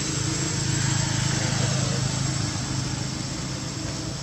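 A motor vehicle's engine runs with a low hum that grows louder over the first two seconds and then slowly fades, like a vehicle passing by.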